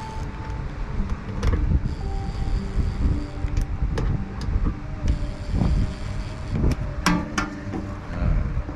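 Cordless drill/driver driving the screws of a fuel level sender plate into a motorcycle fuel tank, its motor whining in two short runs, with several sharp knocks and a low rumble throughout.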